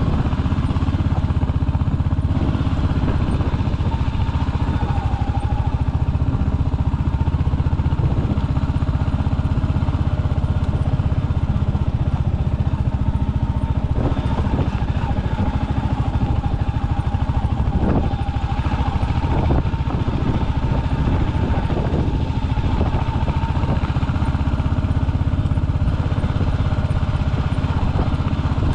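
Royal Enfield Hunter 350's single-cylinder engine running steadily as the motorcycle is ridden off-road, with a few short knocks and rattles about halfway through.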